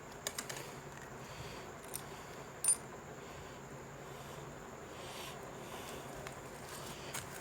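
A screwdriver driving a screw with a metal washer into a broom handle: a few small clicks and taps, the sharpest about two and a half seconds in, over a steady faint hiss.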